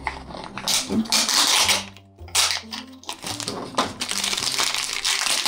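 Paper, plastic and foil packaging crinkling and rustling in irregular bursts as a toy blind box is opened by hand: a paper insert is pulled from a plastic tray holding a foil bag.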